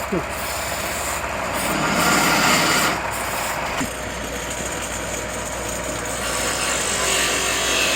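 Wood lathe running, with a cutting tool scraping the spinning wood; the cutting grows louder about two seconds in and again near the end.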